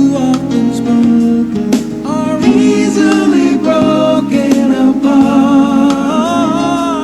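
A slow pop ballad with guitar, played through an Edifier R12U speaker. About two seconds in a voice comes in singing without words, and it holds long notes with vibrato toward the end.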